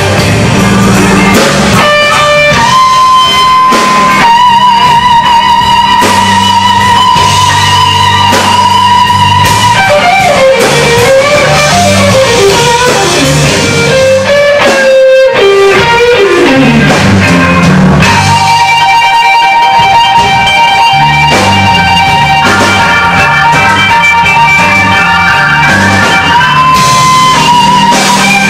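Electric blues band playing live, with a lead electric guitar holding long sustained notes. The guitar bends its notes and makes a long downward slide about halfway through, over a moving bass line.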